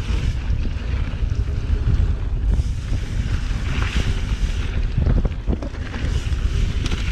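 Wind buffeting the microphone of a camera mounted on a Trek Remedy 9.8 mountain bike, over a steady rumble of knobby tyres rolling fast on a dry dirt trail. A few knocks come from the bike jolting over bumps, about five and six seconds in.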